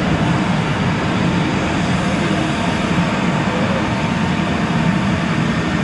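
Steady low rumble with a broad hiss from an Airbus A330 airliner and its pushback tug during pushback, with no sudden sounds.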